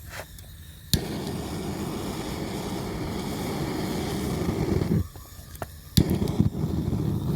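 Plumbing soldering torch lit with a sharp click, its flame burning with a steady rushing hiss for about four seconds before cutting out, then relit with another click and burning again near the end. This is a cheap kit torch that goes out every once in a while.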